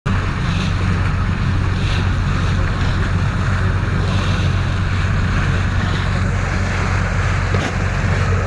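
Steady low drone of a motor ship's diesel engine running under way, with water rushing past the hull and wind on the microphone.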